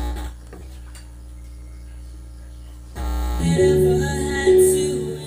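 Steady mains hum from a Live 4 CD mixer and its amplifier, then about three seconds in, music from a phone over USB starts playing through the mixer and amplifier as the repaired unit is tested.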